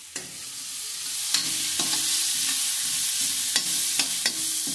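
Carrot pieces frying with spices in oil in a metal kadhai: a steady sizzle that swells in the first second. A metal spatula stirs and scrapes the pan, clinking against it about five times.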